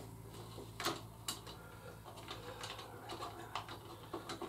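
Scattered light clicks and taps of a plastic funnel being handled and settled into a motorcycle engine's oil filler, over a low steady hum.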